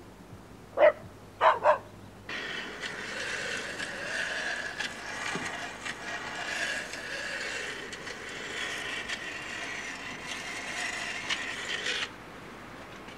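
A dog barks three times in quick succession. Then a steel blade ground on a hand-turned grindstone makes a steady gritty scraping for about ten seconds, which stops abruptly near the end.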